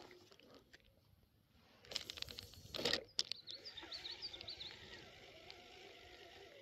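Two brief rushing sounds about two and three seconds in, then a spinning reel being cranked on a retrieve, a faint steady whirr. A bird chirps a few times over it.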